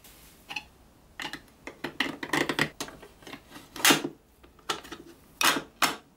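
Small toy parts clicking and knocking together as a clear resin windshield and a powder-coated pressed-steel toy truck cab are fitted onto a white plastic seat piece on a wooden table: a run of light clicks and rattles, a sharp knock about four seconds in, and two more knocks near the end.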